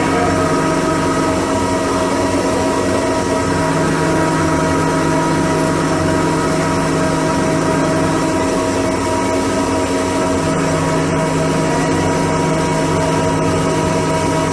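Steady machine-shop noise: running machinery gives a continuous drone with several held tones, and a low hum drops out twice.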